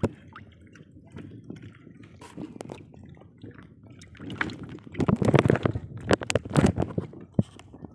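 Water lapping and splashing against a small boat's hull, in irregular splashes that grow louder about halfway through.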